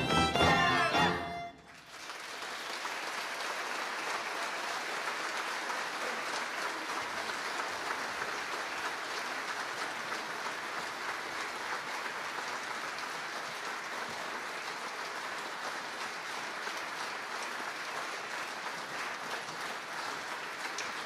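A folk band led by fiddles plays its last notes and stops abruptly about a second and a half in. The audience then applauds steadily.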